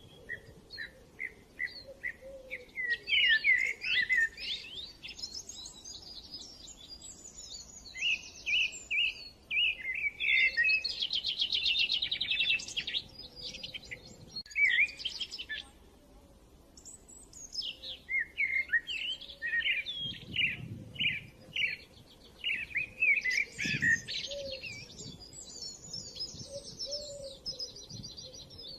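Songbirds chirping and trilling in quick bunches of short, high calls and rapid repeated notes, with two brief lulls.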